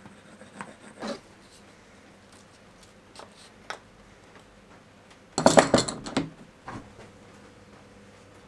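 Small pine workpieces being handled during a glue-up: a few light wooden knocks, then a short burst of clattering wood-on-wood knocks about five and a half seconds in.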